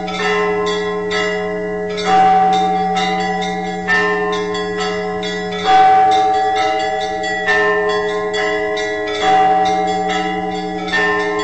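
Church bells ringing: a deep bell struck about every two seconds, each stroke ringing on, under a quicker peal of smaller bells.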